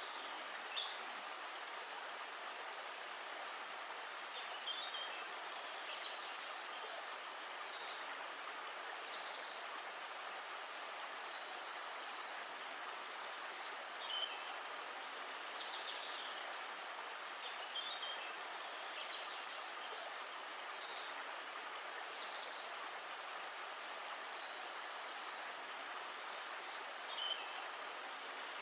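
River water flowing steadily, with short high bird chirps every second or two over it.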